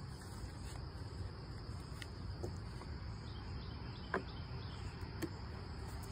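Steady high-pitched trilling of insects, with a couple of faint clicks about four and five seconds in.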